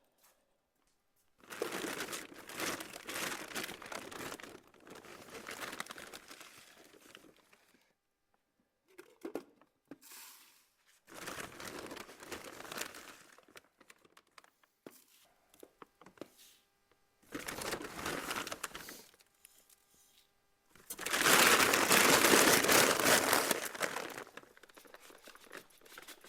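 A bag of chicken feed being handled and the feed poured into a feeder: rustling, crinkling bursts of a few seconds each, five in all, the loudest near the end.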